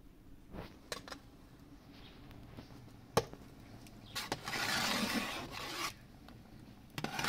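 A few sharp knocks, then a rough scraping about two seconds long starting about four seconds in, and again near the end.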